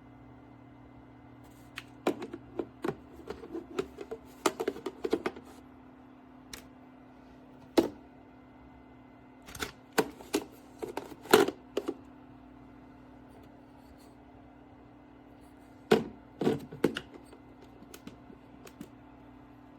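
Irregular clusters of sharp clicks, taps and knocks, as of small hard objects being handled, over a steady low hum.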